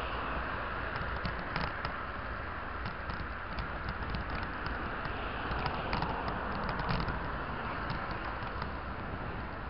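Bicycle ride on a paved cycle path: a steady rush of tyre and wind noise with many small clicks and rattles from the bike.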